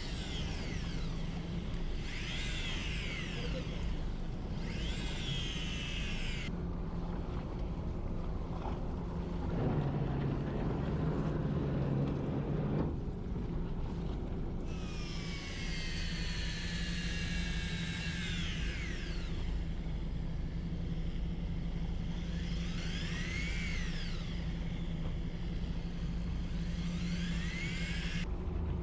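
A fishing boat's engine runs with a steady low hum that swells for a few seconds near the middle. Several times, high whining tones glide up and then down over it.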